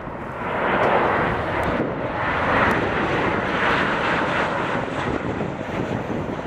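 Jet noise from a Boeing 737-800's CFM56-7B turbofan engines as the airliner passes close on landing approach with gear and flaps down. The noise swells about half a second in and eases a little near the end.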